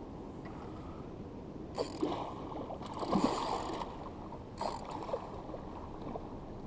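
Hooked mulloway thrashing and splashing at the water's surface, three splashes about two, three and four and a half seconds in, the middle one the longest and loudest, over steady lapping water.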